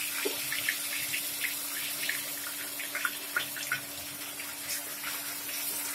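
Onion paste sizzling and crackling in hot oil in an aluminium kadhai, a steady hiss dotted with small pops, over a steady low hum.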